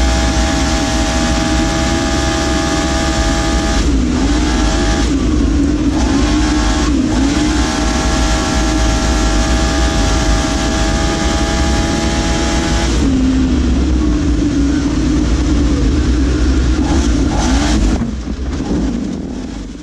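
Arctic Cat Wildcat XX side-by-side race engine running hard, heard from inside the caged cab, holding a steady high pitch with brief dips about four, five, seven and thirteen seconds in. The sound fades out near the end.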